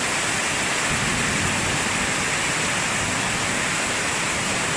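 Heavy rain pouring down steadily, a dense even hiss of a downpour.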